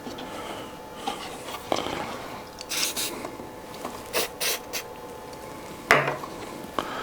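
CA glue accelerator spritzed from a pump spray bottle: several short hissing sprays in quick succession a few seconds in, with light knocks from handling the workpiece.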